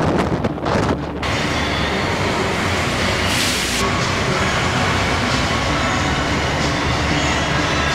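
Wind buffeting the microphone on a cruise ship's open deck for about a second, then a steady rumbling, rushing noise as water sloshes in the ship's swimming pool in heavy seas. A short hiss comes near the middle.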